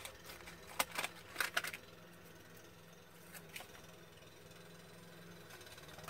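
Small craft scissors snipping through double-sided foam tape stuck on baking paper: a quick run of short, sharp snips in the first two seconds, then two fainter clicks around three and a half seconds in.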